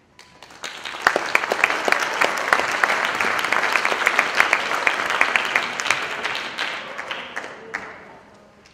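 Concert audience applauding a symphonic band: clapping starts as the music stops, builds to full within about a second, holds, then dies away near the end.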